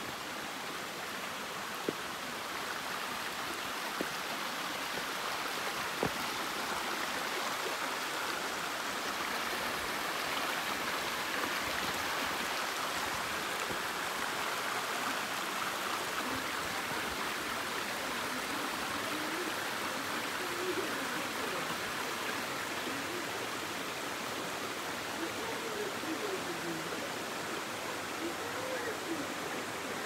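Steady rushing of water from the Fonias mountain stream and its cascade. A few light knocks sound in the first several seconds.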